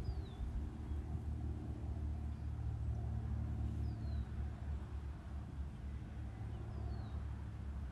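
Wind rumbling steadily on the microphone. Over it, a bird gives a short high call that falls in pitch, three times: at the start, about four seconds in and about seven seconds in.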